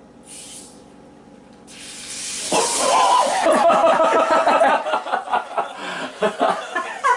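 A shaken can of soda pop hissing hard as it is opened and sprays out, starting about two seconds in, with voices yelling and laughing over it soon after.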